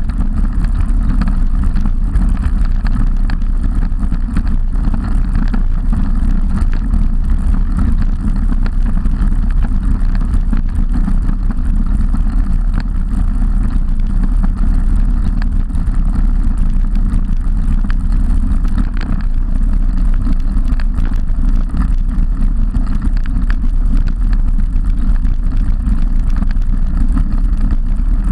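Loud, steady wind rumble on the microphone of a camera mounted on a moving road bicycle, mixed with tyre and road noise.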